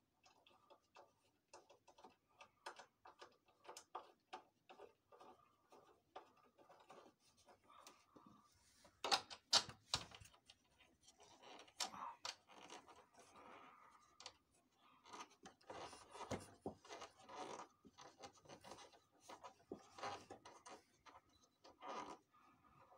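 Faint clicks, taps and scraping of plastic and metal parts as the document feeder of a Xerox WorkCentre 5855 copier is fitted and seated by hand, with a few louder, sharper clicks about nine to ten seconds in.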